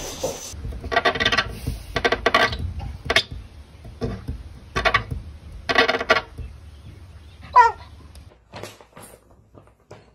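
A golden retriever barking, about six rough, harsh barks spread over five seconds, followed near the end by a single falling call.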